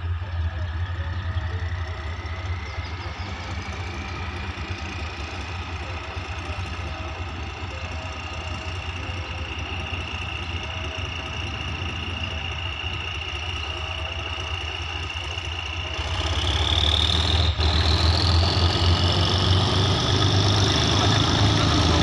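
Diesel engine of an approaching GEK-class diesel-electric locomotive running with a steady low drone, a high tone slowly rising in pitch above it. The sound grows louder about two-thirds of the way through as it nears.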